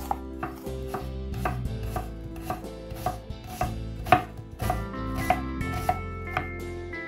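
Knife chopping food on a cutting board, a stroke about every half second, with one stroke a little past the middle louder than the rest. Soft background music with steady tones underneath.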